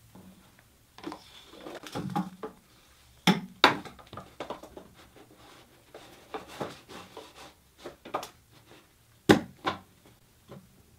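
Leather belt straps handled and laid down on a wooden tabletop: scattered knocks and rubbing, with a few sharper taps, the loudest about nine seconds in.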